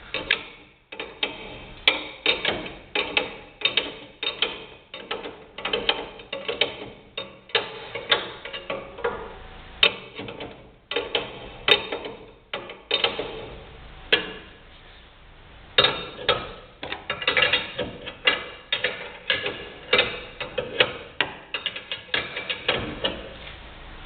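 Hand ratchet wrench clicking through repeated quick strokes, a few clicks a second with a short pause about fourteen seconds in, as a front coil spring is drawn down into its seat under heavy tension.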